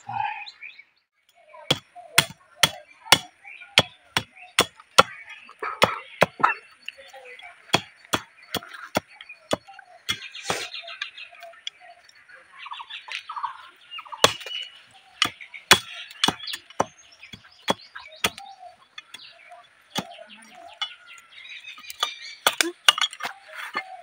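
A large knife blade chopping thin sticks against a wooden log in sharp, irregular strikes, about one to two a second. Birds chirp faintly in the background.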